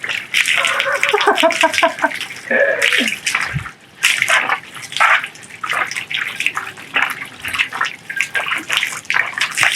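Water splashing and sloshing in irregular bursts as goat skins are washed by hand.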